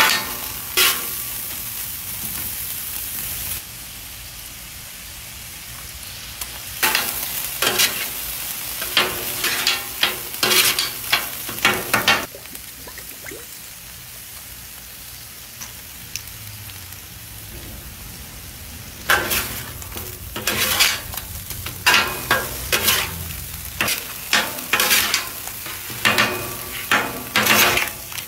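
Ground meat and onions sizzling on a hot flat-top griddle, while metal spatulas scrape and clack against the steel plate in quick runs of strokes. The scraping comes in two spells, with a stretch of plain sizzling between them.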